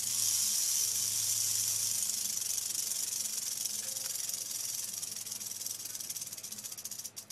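Mojave rattlesnake rattling its tail: a loud, dry, high-pitched buzz of very rapid clicks that starts suddenly, holds steady for several seconds, then stutters and stops near the end. The rattle is the snake's warning signal.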